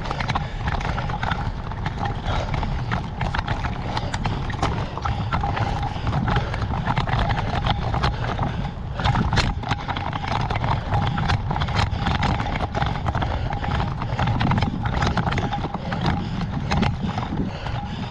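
A rapid, irregular run of sharp clicks and knocks over a steady low rumble.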